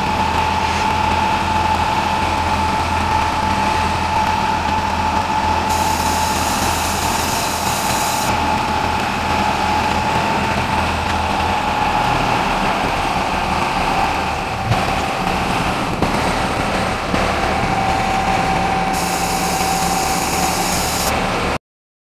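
Self-loading concrete mixer truck's diesel engine running steadily, with a steady high whine over it. Two stretches of hiss come in, about six seconds in and again near nineteen seconds. The sound cuts off suddenly near the end.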